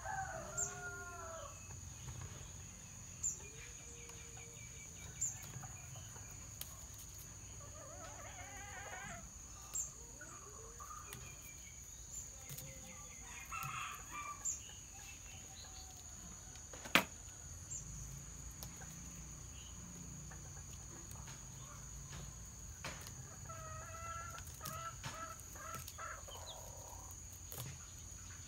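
Chickens clucking and a rooster crowing several times, over a steady high-pitched insect drone. Scattered soft ticks, and one sharp click about 17 seconds in.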